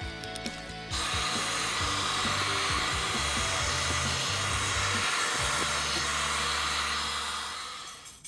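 A steady, loud hiss starts about a second in and fades out near the end, over background music.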